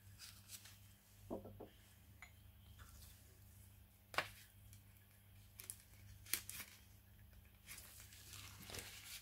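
Faint handling noise from a thin new carburetor gasket being picked up and moved, with a few light sharp clicks, the clearest about four seconds in and again a couple of seconds later, over a low steady hum.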